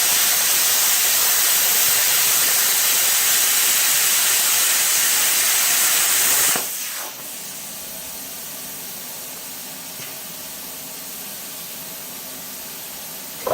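Hypertherm Powermax 45 plasma cutter arc cutting through a half-inch-thick steel grader blade: a loud, steady hiss. About six and a half seconds in the arc stops and a quieter steady hiss carries on.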